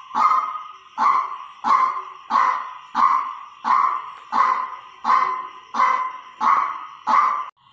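White-breasted waterhen, a decoy bird, calling a loud harsh note over and over, about one and a half calls a second in a steady rhythm.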